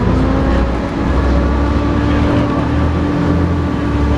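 Volvo B7TL double-decker bus's diesel engine pulling hard, with a steady whine over the low engine drone: the 'hoover' sound this bus type is known for.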